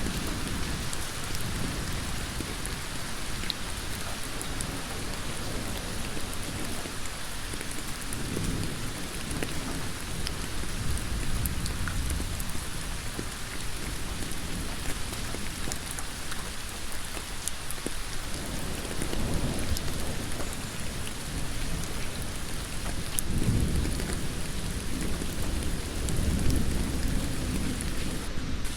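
Heavy rain falling steadily on a road surface, a dense even hiss, with a low rumble swelling up a few times, most strongly in the second half.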